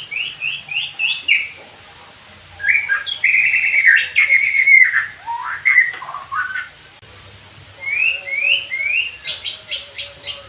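White-rumped shama singing: a run of quick rising whistled notes, then a long warbling phrase in the middle, then another run of rising notes that quickens into fast, sharp strokes near the end.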